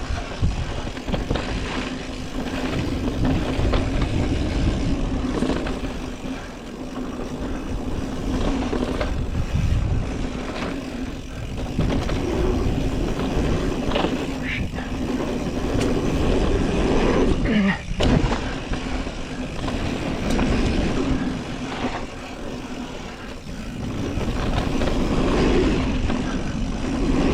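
Mountain bike descending a rough dirt jump trail: steady wind rush on the microphone and tyres rolling over dirt, with the bike rattling and knocking over bumps and landings.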